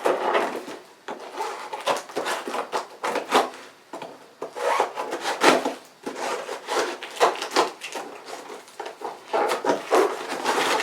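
Bubble wrap and packing material rustling and crinkling in uneven bursts as a package is unwrapped by hand.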